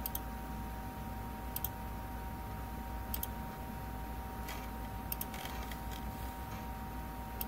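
Computer mouse buttons clicking, a sharp click every second or so, over a steady hum with a faint two-tone whine.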